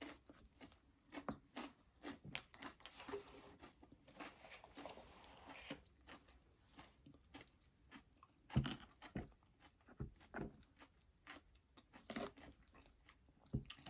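Close-up chewing of a raw vegetable salad: irregular crisp crunches of lettuce and raw vegetables, with a few louder crunches late on.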